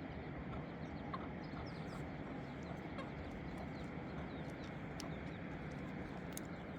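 Faint short bird calls over a steady background hiss.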